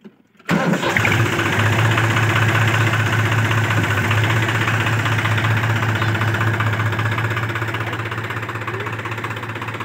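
New Holland 4710 tractor's three-cylinder diesel engine running steadily. It comes in suddenly about half a second in with a deep, even hum, and eases slightly toward the end.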